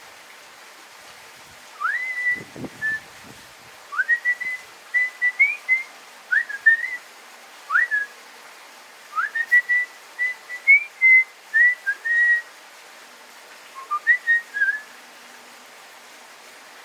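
Person whistling a tune in short phrases, each swooping up into held notes, with pauses between.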